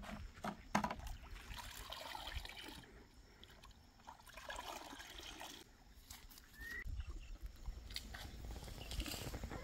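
Faint sloshing and trickling of liquid fertilizer solution in a metal bucket as it is poured and scooped with a plastic mug, with a few sharp knocks about half a second in.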